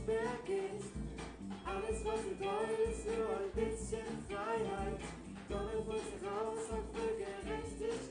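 Amateur rock band playing live, with electric guitar, bass guitar and drum kit, and sung vocals over them.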